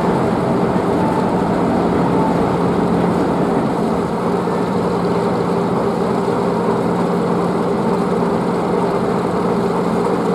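A heavy engine or machinery running at a steady idle: an even mechanical hum with a constant low pitch and no change in speed.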